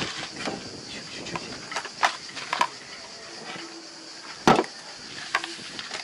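A few sharp knocks and clicks of hands and tools working at a sailing yacht's propeller shaft and rudder fittings. The loudest knock comes about four and a half seconds in. A steady high insect buzz runs underneath.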